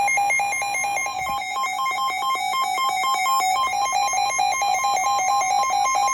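Weather radio tornado-warning alert: rapidly pulsing electronic alarm tones alternating between two pitches. They cut off abruptly at the very end, leaving a single steady tone.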